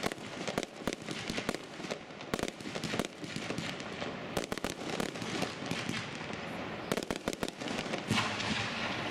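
Aerial fireworks going off in a rapid, uneven run of bangs and pops as shells burst into small star clusters.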